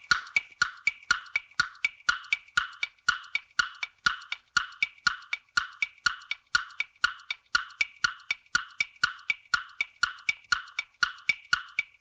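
Countdown-timer sound effect: a steady ticking like a clock or woodblock, about three ticks a second, marking the time left to answer.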